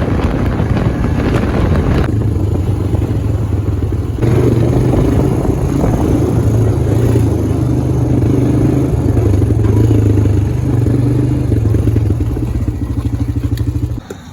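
Honda FourTrax quad's engine running steadily under way, a little louder from about four seconds in, cutting off near the end.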